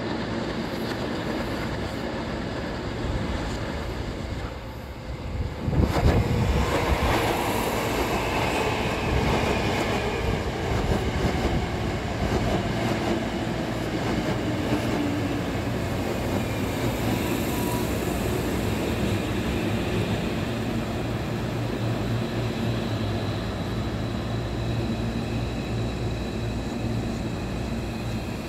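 A Hankyu 7000-series electric train's departure sound played backwards: wheel-on-rail noise and running-gear sound over a steady low hum. The sound rises suddenly about six seconds in, and the train's equipment hums steadily near the end.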